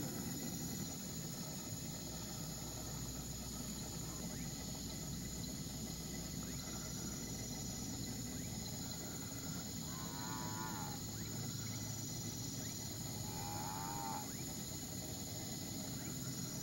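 Night-time insect chorus, with a steady high-pitched tone and faint short chirps repeating every few seconds. Two short wavering animal calls, each about a second long, come about ten and thirteen seconds in.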